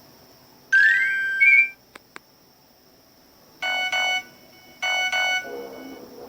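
Nokia 105 (2013) mobile phone playing short electronic alert tones: a quick rising run of notes about a second in, then two pairs of short double beeps near four and five seconds in.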